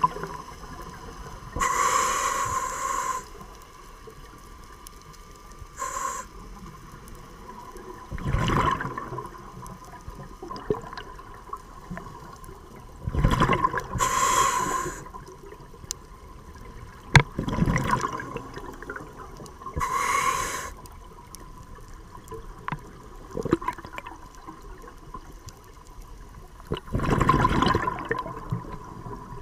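Scuba diver breathing through a regulator underwater: hissing inhalations through the mouthpiece alternate with rushes of exhaled bubbles, one breath every few seconds.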